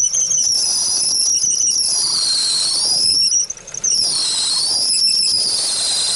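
Ford Focus II alternator belt squealing under electrical load with the heater and heated windows switched on: a loud, high-pitched squeal that wavers up and down in pitch, breaking off briefly about three and a half seconds in. It is the sign of a worn belt slipping on the alternator pulley when the load comes on.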